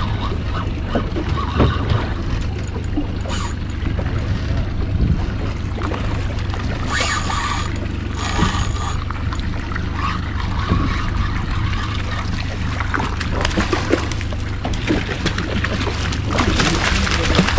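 Water sloshing and trickling against a small boat's hull over a steady low rumble. Near the end, loud splashing builds as a hooked kingfish thrashes at the surface beside the boat.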